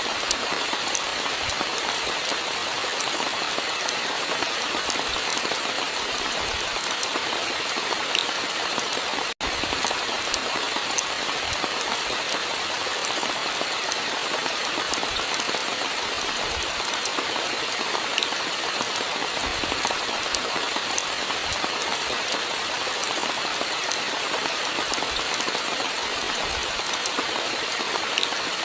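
Steady rainfall, a dense hiss with many distinct drops ticking on a surface. The sound cuts out for an instant about nine seconds in, then carries on unchanged.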